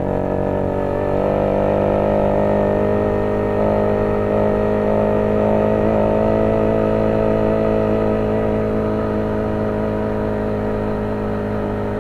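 Motorized bicycle's small engine running steadily while riding; its pitch climbs a little in the first few seconds and then holds.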